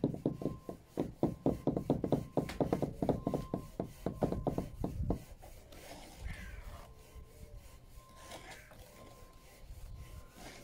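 Steel bricklaying trowels working mortar on top of a block wall: a quick run of sharp chopping and scraping strokes, about five or six a second, for the first five seconds, then quieter scraping as mortar is spread.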